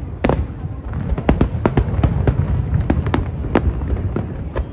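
Aerial fireworks display: an irregular string of sharp shell bursts, about ten in under five seconds, over a constant low rumble of further bursts.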